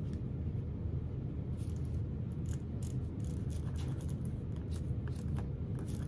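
Pen tracing around an acrylic template on paper: faint, scattered scratches and light ticks over a steady low hum.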